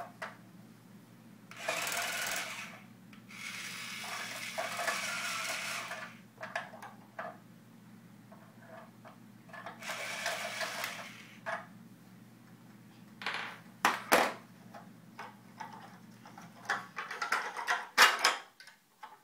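Cordless drill whirring in three short bursts as it backs screws out of a plastic toy car, the middle burst the longest. Near the end come a run of sharp clicks and knocks of the plastic parts and drill being handled.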